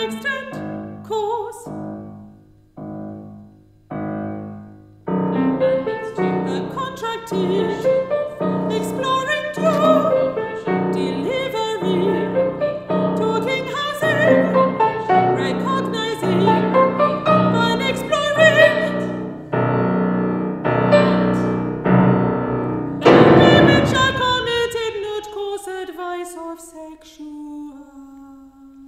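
Piano with a mezzo-soprano voice singing over it. The piano starts with sparse, separate chords, becomes a busy passage from about five seconds in, and near the end strikes a loud chord that rings and dies away.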